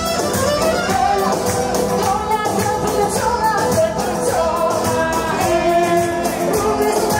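Albanian wedding dance music: a woman singing over violin and a steady beat.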